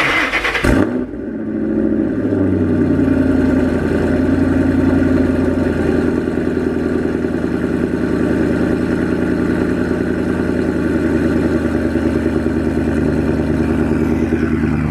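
Ford Mustang GT's 4.6-litre three-valve V8 with full aftermarket exhaust, cold-started: a brief crank, then the engine catches with a flare of revs that falls away within about two seconds into a steady idle.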